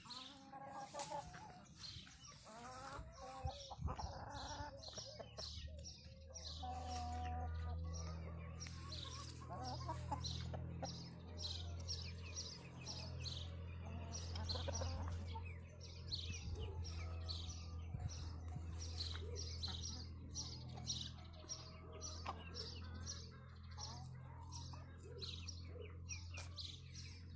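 Wyandotte chickens clucking, with many short high chirps throughout. A steady low hum comes in about five seconds in.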